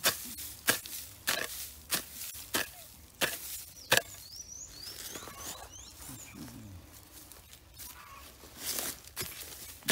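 Wooden-handled digging tool chopping into grassy soil, with about seven sharp strikes, one every two-thirds of a second, over the first four seconds. A few softer knocks follow near the end.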